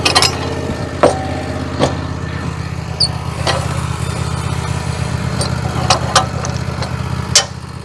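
A small engine idling steadily, with sharp knocks every second or so.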